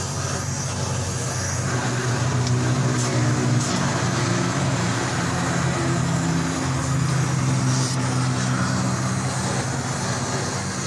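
Steady hiss of a gas welding torch flame on a car's exhaust pipe, over a low hum that shifts in pitch every second or two.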